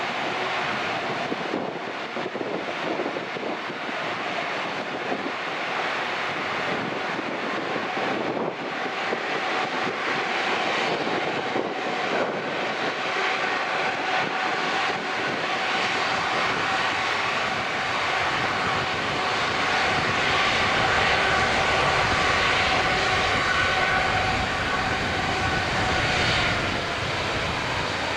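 Emirates Airbus A380's four jet engines at taxi power: a steady rumble and whine with several held tones, growing gradually louder as the aircraft comes closer and peaking about three-quarters of the way in.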